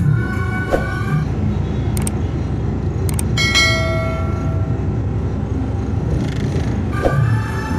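Truck engine and road noise rumbling steadily in the cab. About two seconds in come two clicks, then a ringing bell chime that fades over about a second: the sound effect of a subscribe-button animation. Background music trails off in the first second and comes back near the end.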